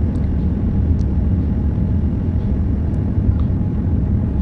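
Steady low rumble of engine and airflow noise inside the cabin of a Boeing 787 airliner descending towards landing.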